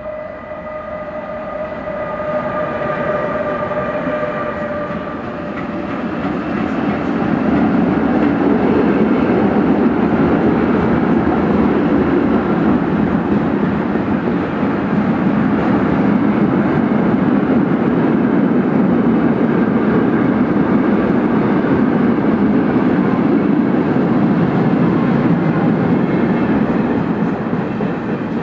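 Long freight train of car-carrier wagons rolling past at speed behind an E483 electric locomotive. A whine of several steady tones from the departing locomotive fades over the first few seconds. Then the wagons' wheels make a steady loud rumble with clicks over the rail joints, easing slightly near the end.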